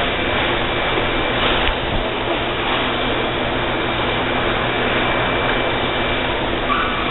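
Steady rushing background noise with a low hum and a faint high-pitched whine.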